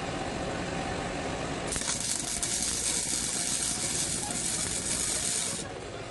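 Electric arc welding on a steel go-kart frame: a crackling, sizzling hiss that starts about two seconds in, holds for about four seconds and cuts off shortly before the end.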